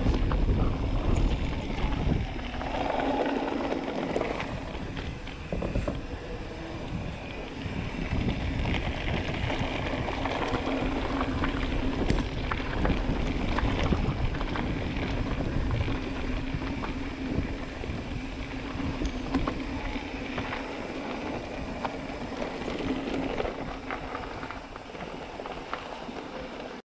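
A 2018 Rocky Mountain Altitude C50 mountain bike being ridden along a dirt and gravel woodland trail: tyres rolling over dirt and stones, with many small clicks and rattles from the bike, under steady wind noise on the microphone that is heaviest in the first couple of seconds.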